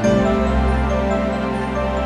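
Background music for the end screen, steady pitched notes with a change of bass note right at the start.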